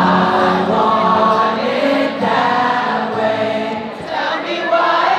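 A group of voices singing a pop song together over music.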